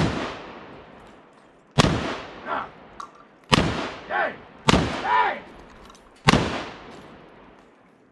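AK-pattern rifle fired as deliberate single shots, five sharp cracks about one and a half seconds apart, each trailing off in an echo.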